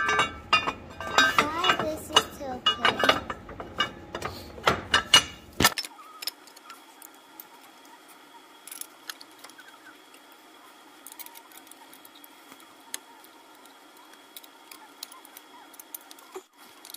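Metal hand tools and hardware clinking and clicking while a starter-motor bracket bolt is fitted and tightened, with voices over it for the first six seconds or so; after that only a faint hum with scattered light clicks.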